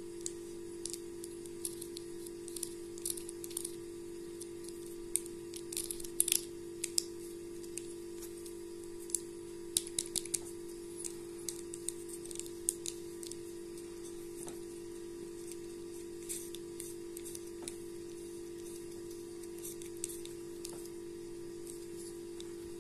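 Small scattered clicks and scrapes of fingers handling and turning the metal barrel and rings of an Industar-61 2.8/52 camera lens, loudest about six seconds in, over a steady hum.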